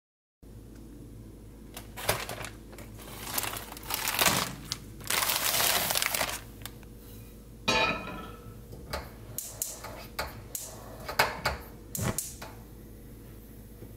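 Plastic bag rustling and crinkling, then a series of clicks, knocks and a clatter as a frying pan is handled and set on the grate of a gas stove.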